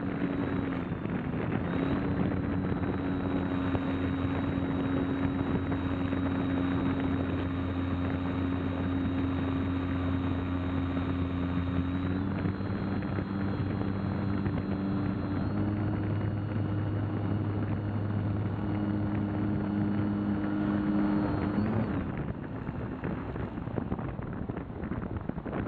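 Electric motor and propeller of an RC glider running steadily, heard from the onboard camera, with a whine that steps in pitch a couple of times as the throttle changes. About 22 s in the motor cuts off and only wind rushing over the airframe is left as it glides.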